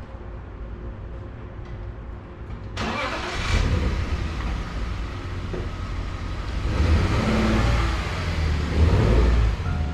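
Car engine running with a low rumble, then suddenly much louder about three seconds in, swelling as it revs.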